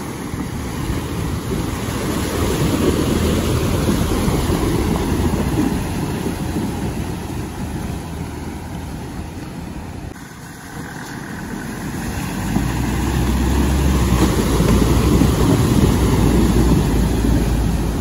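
Land Rover engine running as the vehicle drives, the sound swelling, dipping about ten seconds in, then growing louder again with a deep low drone.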